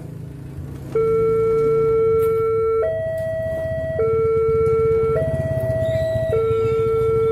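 Railway level-crossing warning alarm switching on about a second in: an electronic two-tone signal alternating between a lower and a higher note about once a second, warning that a train is approaching as the barriers come down.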